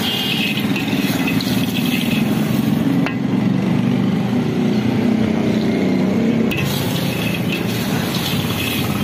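Unshelled peanuts being tossed through hot black roasting sand in a large iron wok with a perforated metal ladle, the shells and sand rattling and scraping against the pan, over a steady low hum.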